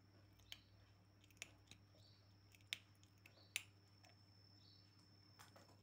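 A cat crunching small pieces of dry food, four sharp crunches in the first few seconds, the last two loudest, over a faint steady hum.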